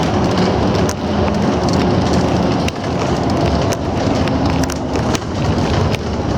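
Bus running on the road, heard from inside the cabin: a steady engine hum with tyre and road noise, and scattered small clicks and rattles.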